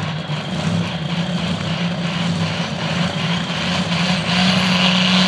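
Turbocharged diesel engine of a light limited turbo pulling tractor running hard under load down the pull track, a steady drone that grows louder about four seconds in.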